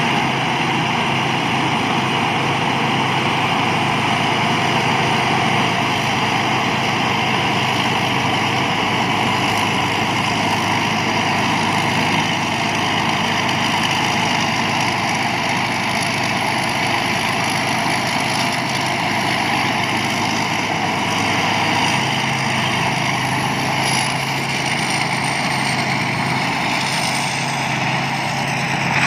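Thai Seng Yont rice combine harvester running steadily under working load, its engine and threshing machinery making a continuous loud drone with a faint high whine that wavers slightly in pitch.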